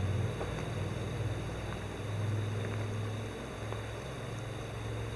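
Footsteps crunching faintly on loose shale and gravel, over a steady low hum.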